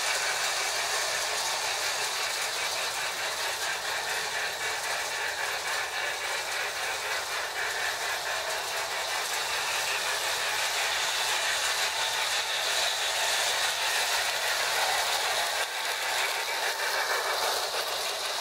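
Marx tinplate toy train running on three-rail track: the Marx 333 steam locomotive's Sound O Power tender gives a steady hissing chuff over the fast rattle of the wheels and cars on the rails.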